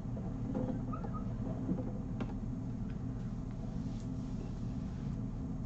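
Steady low room hum with a few faint clicks and taps.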